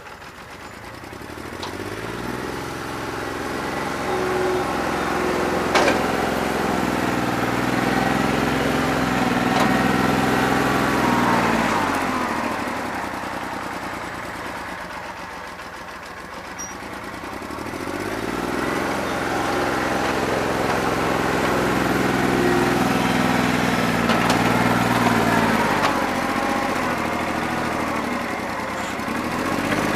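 New Holland 1320 tractor's three-cylinder diesel engine running rough on a bad injector, its revs rising and falling twice as it works.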